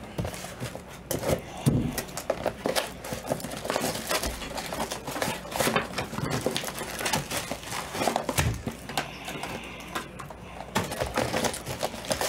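Trading-card boxes and foil packs being handled and set down on a padded table mat: irregular taps, knocks and light crinkles of cardboard and wrappers.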